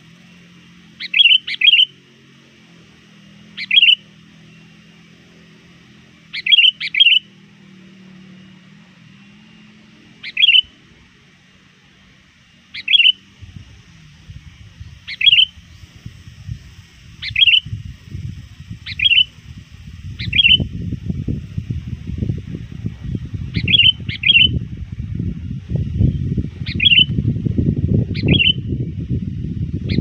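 A sooty-headed bulbul gives short, loud calls every one to three seconds, some in quick pairs, calling out to challenge rival bulbuls. A low rumble builds under the calls from about halfway.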